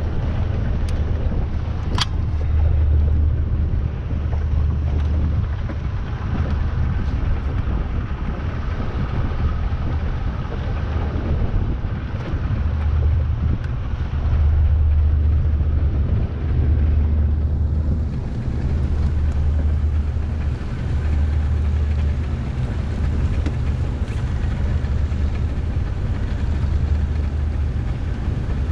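Small motorboat's engine running at low speed, with wind buffeting the microphone in uneven gusts. A single sharp click about two seconds in.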